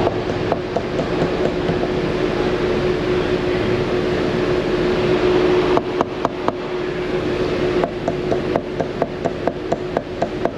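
Sharp taps of a screwdriver handle on an Infiniti G35's mass airflow sensor over a steady running hum: three taps about six seconds in, then a quicker run of about ten near the end. The tapping is a check for an intermittent sensor or connector fault behind a driveability hesitation.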